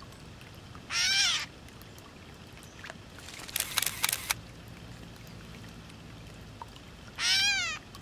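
Gray catbird giving its cat-like mew call twice, once about a second in and again near the end, each a short slurred call. Between them comes a quick burst of camera shutter clicks.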